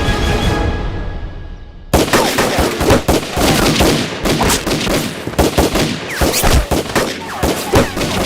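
Background music fades out, then about two seconds in a heavy exchange of rapid gunfire breaks out suddenly. Many overlapping shots, including automatic bursts, continue to the end.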